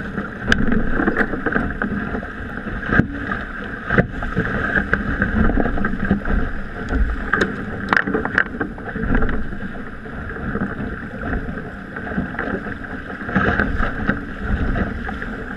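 Water rushing along the hull of a racing sailboat under way and wind buffeting the microphone, with a few short clicks from the deck gear.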